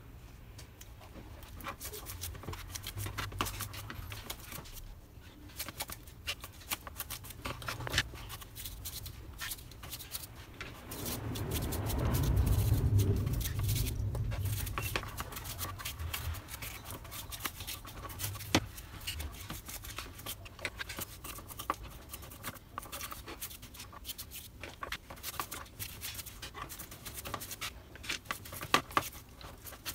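Small plastic and metal door-lock parts scrubbed with paintbrushes in a plastic tub of solvent: bristles scrubbing and irregular small clicks of parts and brush handles against the tub. A louder, low-pitched rustling noise rises for a few seconds around the middle.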